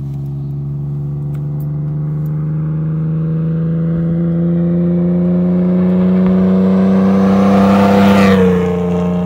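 Pickup truck driving fast toward the listener. Its engine note rises slowly and grows louder, then drops in pitch with a rush of tyre noise as it passes about eight seconds in.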